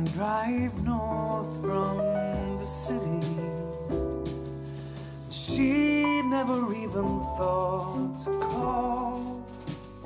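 A song with a singing voice and instrumental backing, played back through a pair of Edifier R1280DB bookshelf speakers and picked up by a recorder's microphone in the room.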